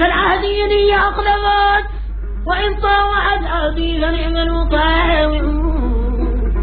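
A solo voice singing long held, wavering phrases in a Middle Eastern style, breaking off briefly about two seconds in before starting a new phrase.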